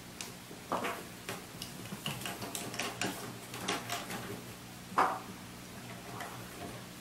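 Cats' claws scratching and tapping on a wooden desk as a kitten clings to its edge, a scatter of light clicks and scrapes with a sharp knock about five seconds in, over a low steady hum.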